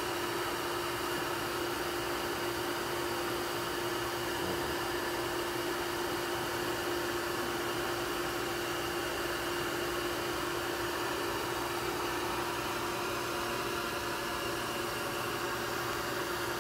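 Bee vacuum running steadily as its hose sucks honeybees off the comb: a constant airflow hiss with a steady hum.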